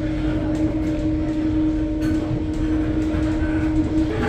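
Electric commuter train running, heard from on board: a steady rumble from the wheels and track under a steady whine, which steps up in pitch near the end as the train picks up speed.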